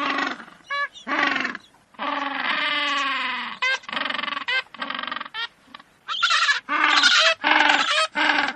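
A series of animal calls: some short, some long and wavering, with higher, brighter calls from about six seconds in.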